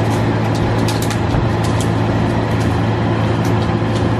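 Skid steer loader's engine running at a steady drone while it pulls shrubs out of a planter bed on a taut chain, with scattered light clicks over it.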